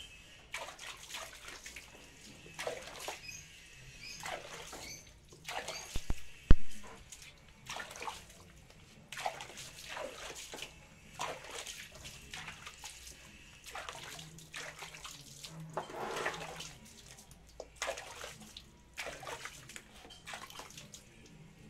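A wet, soapy dog's coat being scrubbed by hand, with water splashing, in a run of irregular rubbing strokes. A couple of sharp knocks come about six seconds in.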